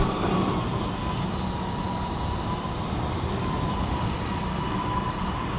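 Electric winch running with a steady whine as it lets a heavy vintage fire truck down a car-hauler trailer ramp, over a low mechanical rumble.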